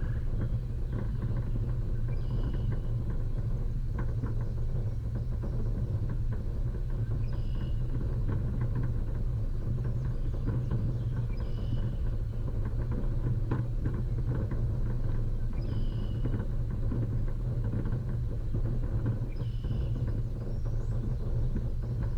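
Off-road vehicle driving slowly over a rough dirt track: a steady low engine and road rumble with many small rattles and knocks from the bumpy ground. A short high chirp recurs about every four seconds.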